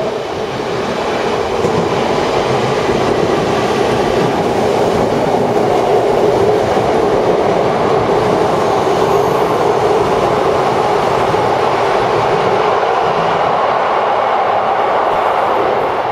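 Electric trains passing through a station: an Odakyu 3000 series commuter EMU and a 50000 series VSE Romancecar limited express, with a steady loud rumble of wheels on rails and running gear. The noise builds over the first two seconds as the Romancecar comes alongside on the near track, holds steady, and eases near the end as it pulls away.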